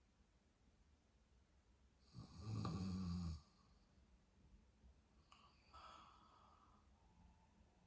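A dozing woman snoring: one low snore lasting about a second, a couple of seconds in, followed by fainter breathing.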